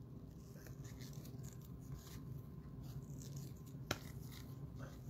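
Faint rustle and scrape of trading cards being handled and slid past one another, with one sharp click about four seconds in.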